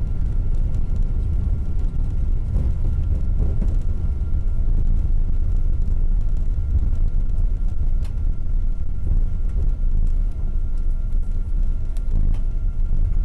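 Boeing 777-200ER airliner heard from inside the cabin: a steady, loud low rumble of engines and airflow, with a faint steady whine above it. A couple of brief clicks or rattles come about two-thirds of the way in and near the end.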